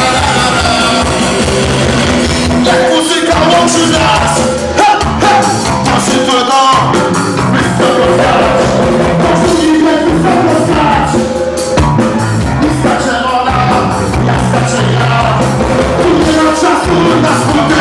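Live rock band playing loudly: electric guitar, bass guitar and drum kit, with a man singing into a microphone over them.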